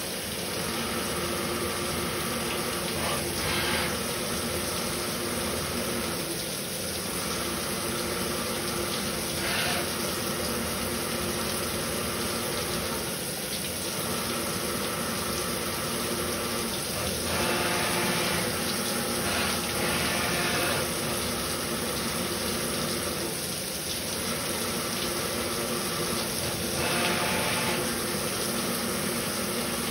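DIY CNC milling machine cutting a part on its fourth-axis rotary table under flood coolant spray, the spindle and cutter giving steady tones over the rush of coolant. The tone of the cut shifts every three to four seconds as the tool moves from pass to pass.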